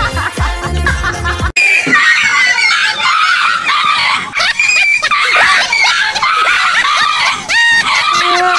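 Music with a heavy bass beat that cuts off suddenly about a second and a half in. It is followed by high-pitched, wavering screaming that carries on without a break.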